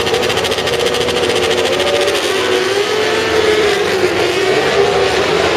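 A full grid of superbike racing motorcycles revving hard and pulling away from a standing race start. It is a loud, dense mass of high-revving engines whose pitches waver and climb over one another.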